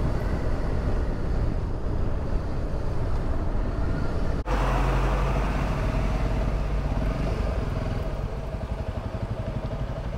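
Honda CRF300 Rally's single-cylinder engine running as the bike is ridden; after a sudden cut about four and a half seconds in, the engine idles steadily with the bike at a standstill.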